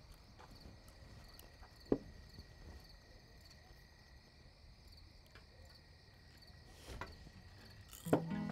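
Crickets chirping steadily in a night-time ambience, with a single sharp click about two seconds in.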